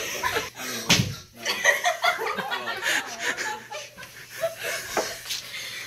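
A group of teenagers laughing and giggling, with a sharp smack about a second in and another just before the end.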